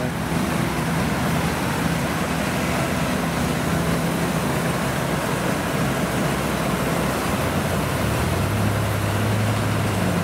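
Kubota DC-70 rice combine harvester running steadily while it harvests, its diesel engine's hum under a dense wash of mechanical noise from the cutting and threshing gear. About eight seconds in, the low engine tone shifts slightly.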